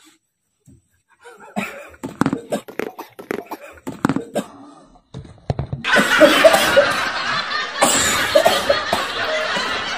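Men laughing hard in short bursts, then a louder, denser wave of laughter from about six seconds in.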